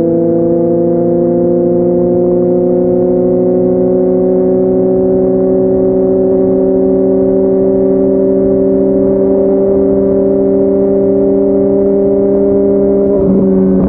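Yamaha MT-09's three-cylinder engine through a Yoshimura R55 slip-on exhaust, under way at a steady cruise with its note rising slowly as it gathers speed. Near the end there is a brief break in the note and the pitch drops slightly.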